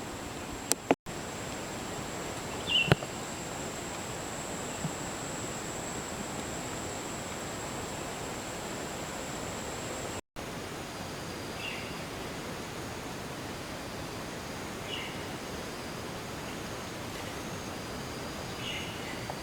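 Steady outdoor forest ambience: an even rushing hiss, with a few short bird chirps scattered through it. A constant high-pitched insect whine runs until it breaks off about halfway, and two sharp clicks come in the first few seconds.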